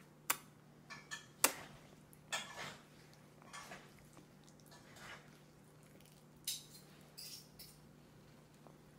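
Scattered light clicks and knocks, about ten, irregularly spaced, as a toddler feeds herself macaroni by hand from a plastic bowl on a high-chair tray.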